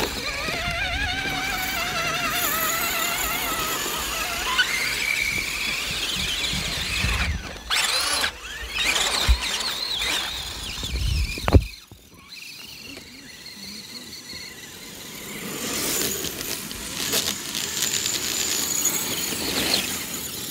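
Whine of the motors and gears of scale RC 4x4 trucks, wavering and rising in pitch as the throttle changes. The sound changes abruptly a few times and is quieter after about twelve seconds in.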